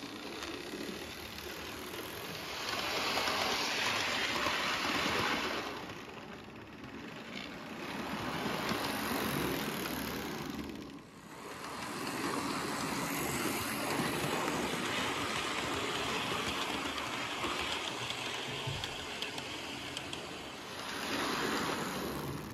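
Model class 47 diesel locomotive running along the track: the whir of its electric motor and the running noise of its wheels on the rails, swelling and dipping several times as it moves round the layout.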